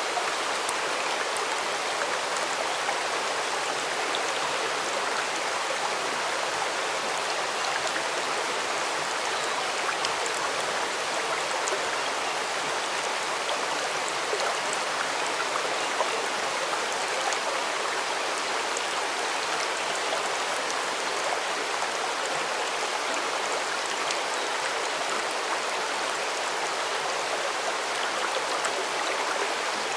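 Stream water running steadily: an even, unbroken rush of flowing water.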